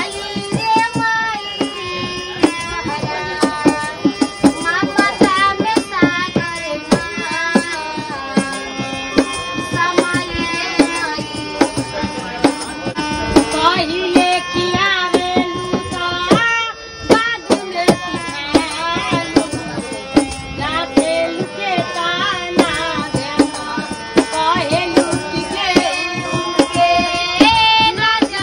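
A song playing, with a quick drum beat under a melody that slides and bends in pitch.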